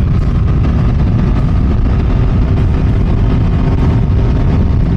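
Three-wheeled Can-Am Ryker Rally Edition cruising on the road: a steady engine drone under heavy wind buffeting on the microphone.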